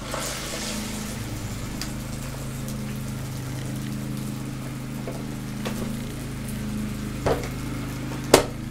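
Beaten eggs poured onto the hot plates of a waffle iron, with a brief sizzle as they land, over the steady drone of a lawn mower engine running outside. Near the end come two knocks as the waffle iron's lid is brought down and clacks shut.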